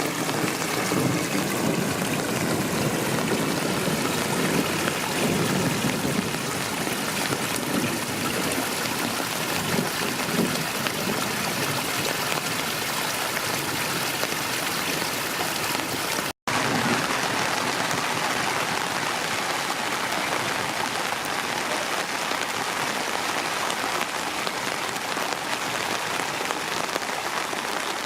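Steady rain falling. It cuts out for an instant about halfway through, and afterwards the rain sounds hissier.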